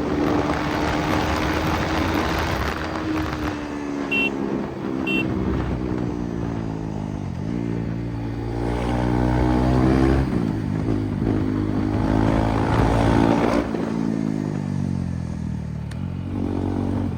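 Single-cylinder motorcycle engine of a KTM Duke 390 under way, its pitch climbing and dropping several times as it accelerates and backs off. Two short high beeps sound about four and five seconds in.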